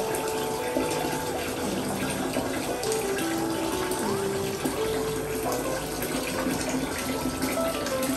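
Water running steadily from a tap or shower into a bath, with a simple background melody over it.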